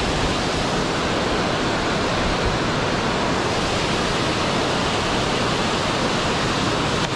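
Water pouring over a concrete dam spillway into the pool below: a steady, unbroken rush.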